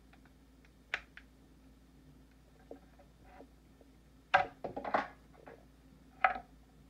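Hands breaking apart a cooked lobster's shell on a wooden cutting board: scattered clicks and knocks of shell cracking and pieces set against the wood, with a quick cluster of cracks about four seconds in and one more a little after six seconds.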